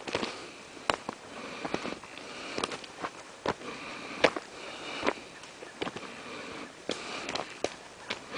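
A string of irregular sharp clicks and crackles, a dozen or so of varying strength, over a steady rustling background.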